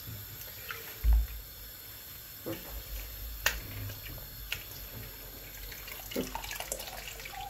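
Tap water running into a kitchen sink, with a dull thump about a second in and a few sharp clicks.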